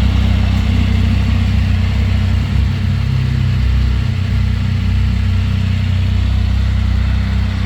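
2022 Can-Am Spyder F3S three-wheeler's Rotax 1330 inline three-cylinder engine idling steadily through its standard exhaust.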